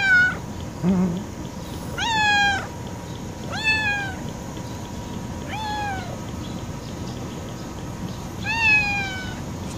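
A tortoiseshell cat meowing repeatedly: five short, high calls spaced about one to three seconds apart, each rising slightly and then dropping at the end.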